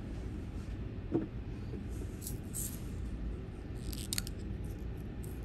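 Steady low background rumble, with a soft knock about a second in and a few faint light clicks around two and four seconds in.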